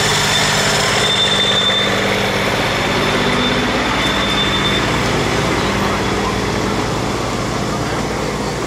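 Small internal-combustion engine of a miniature-railway locomotive running steadily as it hauls passenger cars past, easing off slightly in loudness toward the end. Two brief high squeals come through about a second in and about four seconds in.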